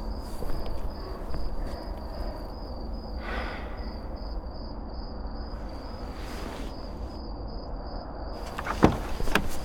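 Steady hiss of night rain with a faint, evenly pulsing high tone over it; near the end, a few sharp clicks and knocks of a car door as it is opened.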